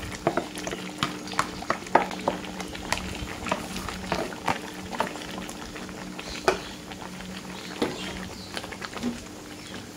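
Coconut-milk curry with sliced bamboo shoots simmering in a wok: irregular bubbling pops over a steady low hum.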